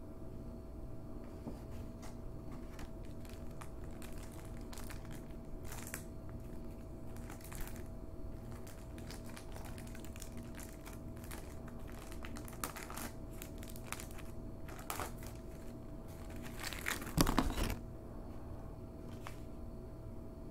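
Paper mailer and clear plastic shrink wrap crinkling and tearing in scattered bursts as a floppy disk package is opened, with the loudest stretch of crinkling about three quarters of the way through.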